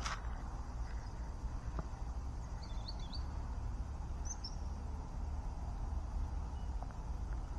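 A few short, high bird chirps, three or four together a little before halfway and two higher ones soon after, over a steady low rumble.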